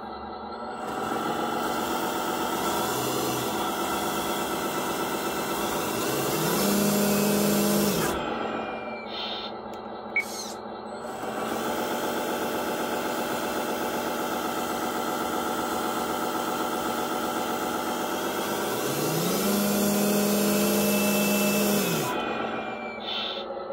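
Electric motor and geared drivetrain of an RC Mercedes Zetros 6x6 scale truck, run with its wheels off the ground, whining steadily. It runs twice, each run rising in pitch as it speeds up and then stopping, with a click between the runs.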